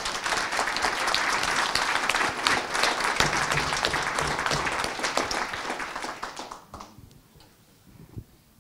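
Audience applauding, many hands clapping at once; the applause dies away about six to seven seconds in.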